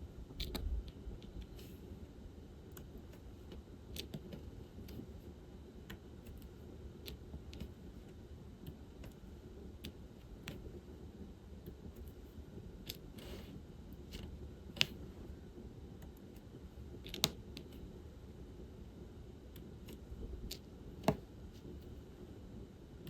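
Irregular small plastic clicks and taps of diamond painting: resin drills being picked up from the tray and pressed onto the canvas with a drill pen. A few clicks are sharper and louder than the rest.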